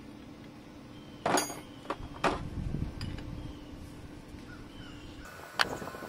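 Metal hand tools clinking and knocking against a diesel injection pump as a fitting is worked off it: a few sharp clinks, the loudest about a second in, another pair about two seconds in and one more near the end.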